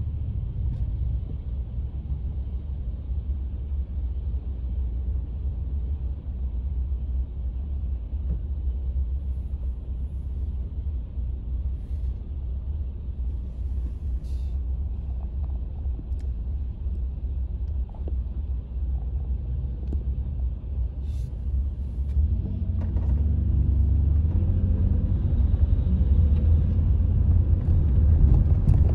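Low rumble of a car heard from inside its cabin, idling while stopped, then growing louder about three quarters of the way in as the car pulls away and picks up speed.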